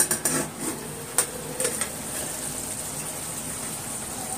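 A few sharp metal knocks in the first two seconds as a steel bowl resting as a lid on a kadhai is handled and lifted, over the steady sizzle of tomato masala simmering in the pan.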